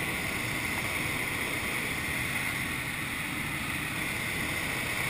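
Steady rush of air streaming past a glider's cockpit and canopy in flight, an even hiss with no engine.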